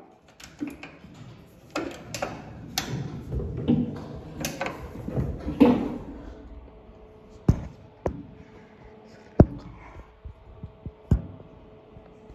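Metal clicks, clunks and scraping from a Kone MonoSpace lift's landing door as its lock is worked with a release key and the door is handled. The first half is a busy run of clunks and knocks; the second half has a few sharp, separate clicks over a faint steady hum.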